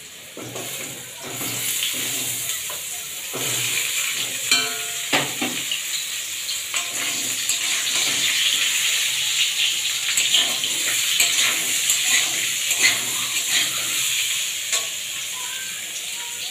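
Potato wedges sizzling in hot oil in a steel kadai, the sizzle swelling over the first couple of seconds, while a metal spatula stirs them, scraping and clinking against the pan.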